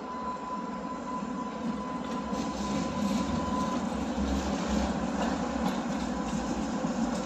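Electric tram rolling past on its rails, its low rumble building from about two seconds in and loudest around the middle.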